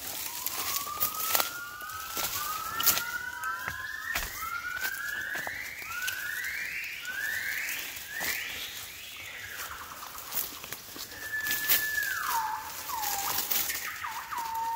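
Southern yellow-cheeked gibbons singing: a series of rising whooping notes, each climbing higher and faster and coming closer on the last. About eleven seconds in come calls that drop sharply in pitch and then level off or rise again. Sharp crackles, like twigs and leaf litter underfoot, run throughout.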